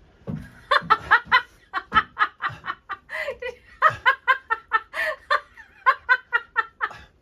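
A woman laughing hard: a long run of quick giggles, about five a second, with short breaths between.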